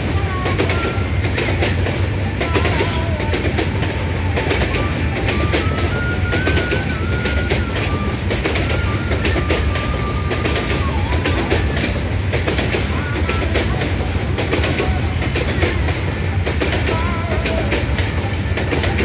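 Loaded oil tank wagons of a freight train rolling slowly past on the rails: a steady heavy rumble, with wheels clicking over rail joints. A wavering high squeal comes and goes.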